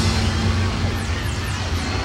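Live stadium concert recording: the band's music under a large crowd's cheering.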